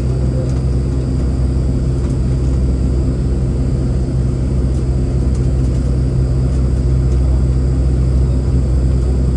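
Airport transfer bus driving, heard from inside its passenger cabin: a steady low engine and road rumble.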